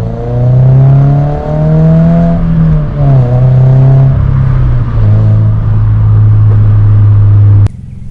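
2022 Subaru BRZ's 2.4-litre flat-four running through an HKS Spec L exhaust under acceleration. The engine note climbs in pitch, falls with an upshift about three seconds in, then holds steady at a cruise, cutting off suddenly near the end.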